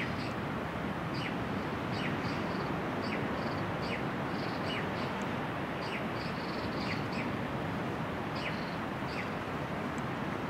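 Small birds chirping, short falling notes with higher twitters repeating about once a second, over a steady background hiss.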